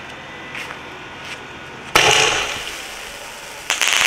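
Sony 'Golden Tree' sky shot firework: the fuse sputters faintly, a sudden loud report about two seconds in as the shell goes up, then near the end it bursts into a sustained crackling shower.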